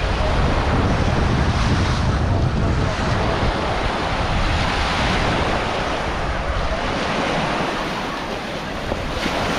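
Small sea waves washing onto a beach, with wind buffeting the microphone as a low rumble that is strongest in the first few seconds.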